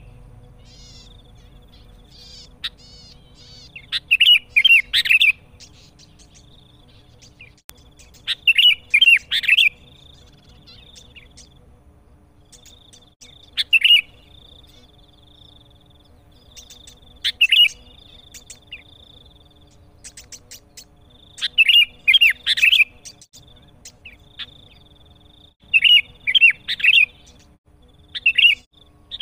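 Sooty-headed bulbul singing loudly in short song phrases, repeated about every four seconds, with a faint steady high tone in the gaps between phrases.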